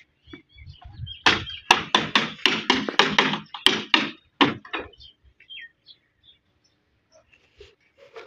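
A quick run of knocks or slaps, about four a second, starting about a second in and stopping after about three and a half seconds.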